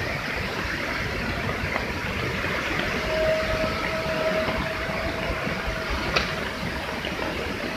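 Waterfall swollen by a flash flood, muddy water plunging and crashing below in a steady, dense rushing roar. A steady high tone joins it about three seconds in and stops shortly before the end, and there is one sharp click about six seconds in.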